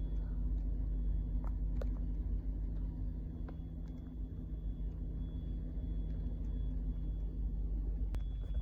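Steady low rumble and hum of a train carriage, with a few faint clicks.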